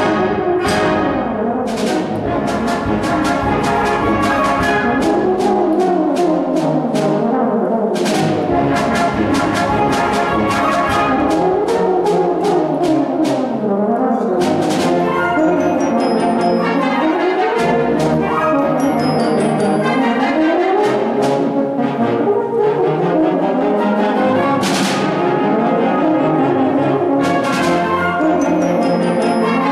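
Solo euphonium playing fast runs that sweep up and down, accompanied by a wind ensemble with flutes, clarinets and sharp percussion strikes.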